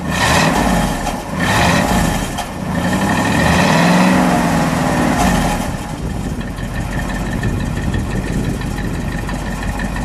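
1960 Ford Thunderbird's 352 V8 revved three times through its dual exhaust, the third rev held longer, then settling to a steady idle: a nice little rumble.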